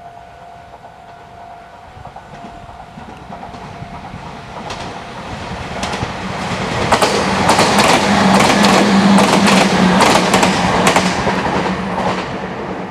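Meitetsu 3700-series four-car electric train approaching and passing at speed, growing steadily louder to a peak in the second half, then fading near the end. Its wheels clack sharply over the rail joints as the cars go by, over a low steady hum.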